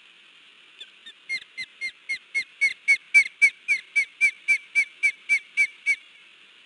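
Female osprey alarm calling on her nest: a rapid series of about twenty sharp whistled calls, about four a second, growing louder over the first two seconds and then holding steady until they stop near the end.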